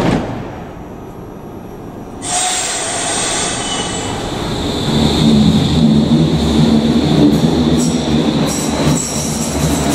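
Berlin U-Bahn type IK small-profile electric train starting to pull out of an underground station: a steady high whine, then from about halfway through a louder electric hum of the traction drive as it gets moving.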